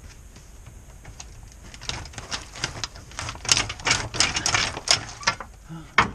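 A quick run of sharp metallic clicks and rattles for about three seconds, then one more click near the end, as the lower control arm is let down on a floor jack and the front coil spring unloads.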